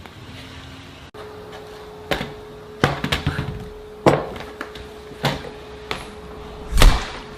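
Six sharp knocks, roughly a second apart, over a steady hum; the last knock, near the end, is the loudest.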